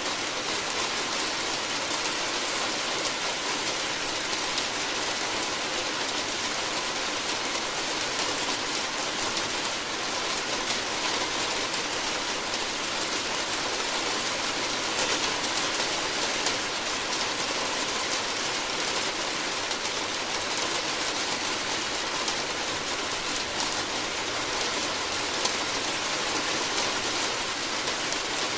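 Steady rain falling on a roof: an even, unbroken hiss of many small drop impacts that holds the same level throughout.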